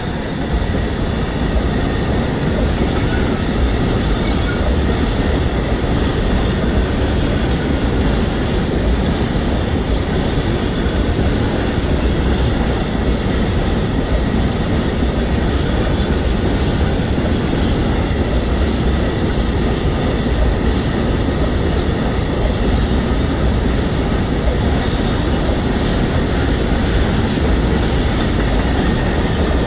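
Freight train passing close by: a Class 186 electric locomotive followed by a long string of covered hopper wagons, the wheels rolling over the rails with a loud, steady noise that swells in the first second as the locomotive goes by.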